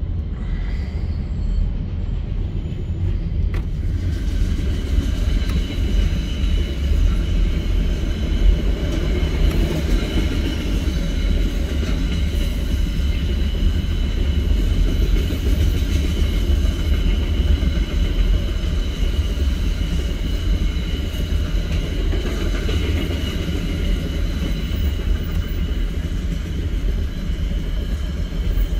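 Container freight train's wagons rolling past in a steady low rumble, with faint high steady tones above it. Heard from inside a vehicle's cabin through the windscreen.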